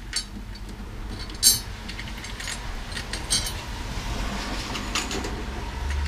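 Metal drum hardware being handled: tom hoops and tension rods clinking in a few sharp knocks, the loudest about a second and a half in. A low steady rumble runs underneath.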